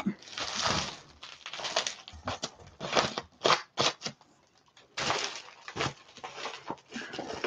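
Packing material rustling and crinkling as it is pulled off crystal turtles, with a few sharp clicks about three to four seconds in.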